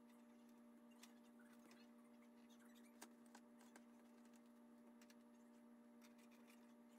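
Near silence: a steady electrical hum, with a few faint clicks and taps as the metal wiper assembly is handled.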